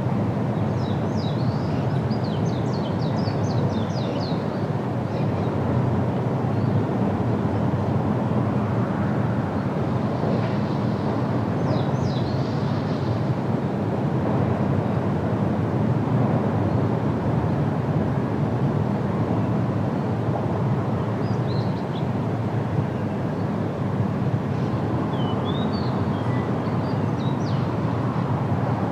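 Outdoor field recording: a steady low rumble, with a small bird chirping in short bursts several times.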